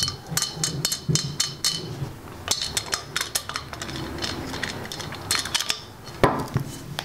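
Small metal clicks and clinks as a screw-in weight wrench and tiny toe and heel weights are handled on a TaylorMade R11S driver head during a weight swap. A louder knock comes about six seconds in.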